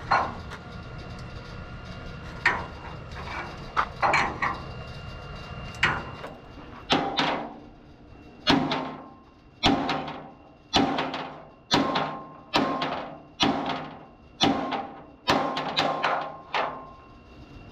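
Hammer blows ringing on a steel truck chassis rail as the accident-bent frame is beaten straight, about one blow a second from about seven seconds in. Before that come a few scattered metal clanks over a low rumble.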